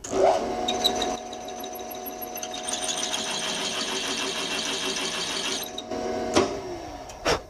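Drilling machine spindle switched on with a drill bit cutting briefly into a cast iron hand wheel to seat a screw head, running with a steady whine and a fine rattle of cutting. It is switched off about six seconds in and its pitch slides down as it winds down. A sharp knock follows near the end.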